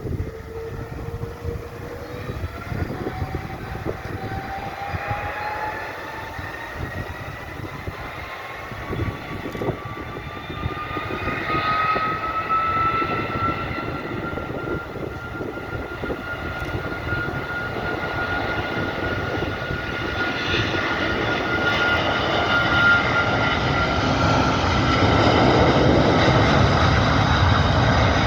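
Airbus A330 freighter's jet engines spooling up, a whine that climbs steadily in pitch for about fourteen seconds and then holds, over a constant rumble that grows louder near the end: thrust being set for takeoff.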